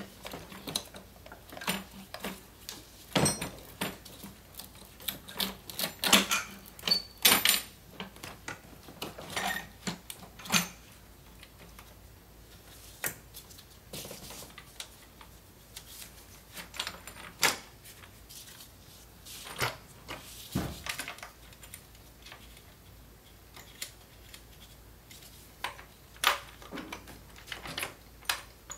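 Irregular clicks, taps and knocks of a plastic intake manifold being set back in place and handled by gloved hands, with most of the loud knocks in the first eight seconds.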